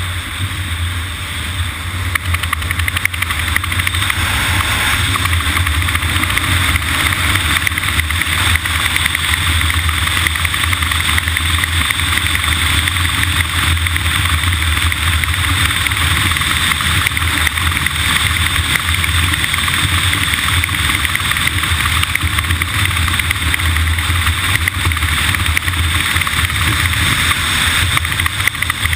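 Steady running noise of a vehicle travelling on the road: a constant low rumble under a broad rushing hiss, which gets a little louder two to four seconds in and then holds steady.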